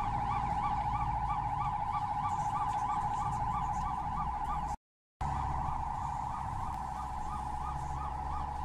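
Ambulance siren wailing in a fast rising-and-falling warble, about four cycles a second, over a low rumble of engine and road. It drops out for half a second about halfway through, then carries on.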